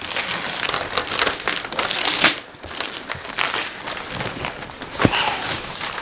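Shiny silver gift wrap crinkling and tearing as it is pulled off a cardboard box, in quick, irregular rustles and crackles.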